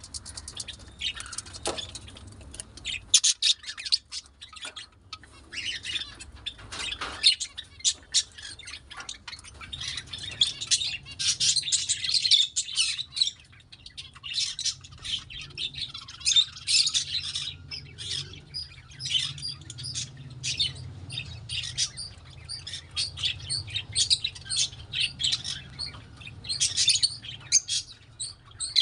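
Caged budgerigars and cockatiels chirping and calling: a steady stream of quick, high chirps that overlap from several birds at once.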